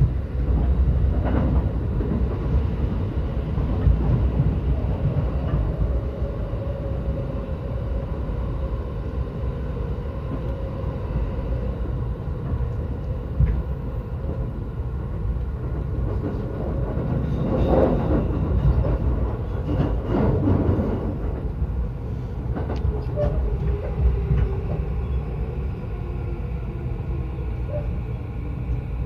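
Yokosuka Line electric commuter train running, heard from on board: a steady rumble of wheels on rail with occasional clicks over the track. Through the second half a faint motor whine glides down in pitch as the train slows.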